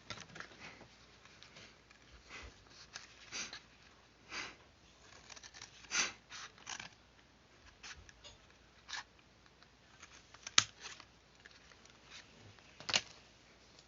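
Paper being handled and cut by hand: scattered light rustles and small clicks at an irregular pace, with two sharper ticks near the end.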